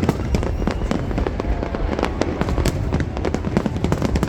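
Fireworks going off in a rapid, dense barrage: many sharp cracks and bangs overlapping on a continuous deep rumble.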